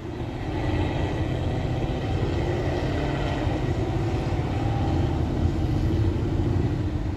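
Car driving, with steady road and engine rumble heard from inside the cabin.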